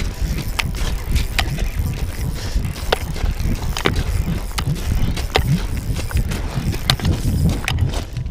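Handling noise during a fish fight: a steady, fluctuating low rumble with irregular sharp clicks and knocks about every half-second to second.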